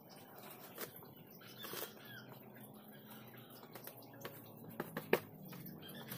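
A few scattered light taps and clicks, the sharpest about five seconds in, over a faint low hum.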